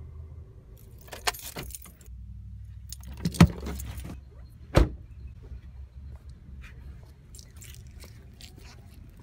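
Car keys jangling and rustling as they are handled, then a car door opening and shutting with two sharp thuds about three and a half and five seconds in, followed by light footsteps on pavement.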